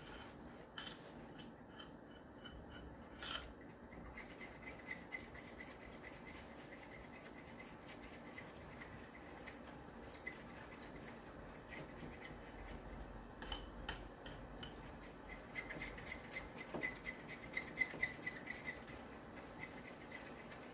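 A utensil stirring and scraping a cornstarch slurry in a small container, with faint rubbing and quick light taps that come thicker about two-thirds of the way through, over a faint steady hiss.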